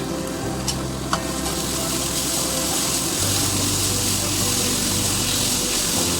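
Grated cabbage, carrot and capsicum frying in hot oil in a kadai, sizzling and being stirred. Two light utensil taps come about a second in, and the sizzle grows louder and brighter soon after.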